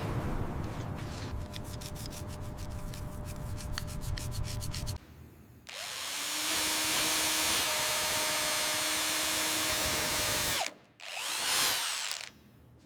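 Power tools in a series of short cuts: rapid clicking for the first few seconds, then after a brief pause a steady hissing run of about five seconds, and a short burst near the end.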